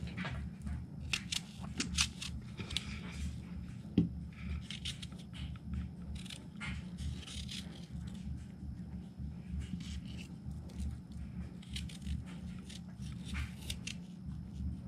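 A paring knife cutting and coring a fresh apple, with short crisp scraping cuts at irregular intervals and one louder knock about four seconds in, over a steady low hum.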